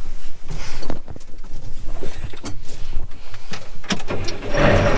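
Knocks and clicks of someone getting into the cab of a Caterpillar Challenger rubber-tracked tractor, then about four and a half seconds in its diesel engine starts at once and runs steadily.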